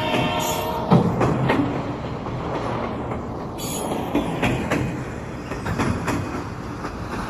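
A train horn sounding and cutting off about a second in, followed by the rumble of a train running on rails, with scattered clicks from the wheels.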